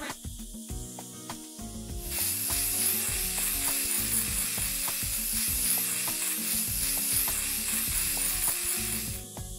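Cartoon sound effect of a sandblaster spraying, a steady hiss as it strips rust from a car body. It starts about two seconds in and cuts off just before the end, over soft background music.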